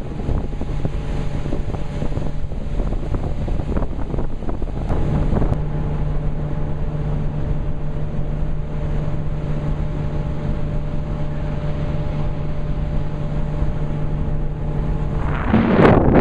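Motorboat engine running at a steady pitch under way, with wind rushing on the microphone. Near the end the engine hum drops out under a louder gust.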